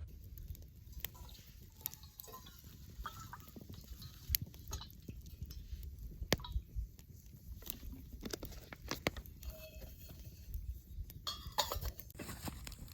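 A small wood fire crackling, with irregular sharp pops and snaps over a faint low rumble.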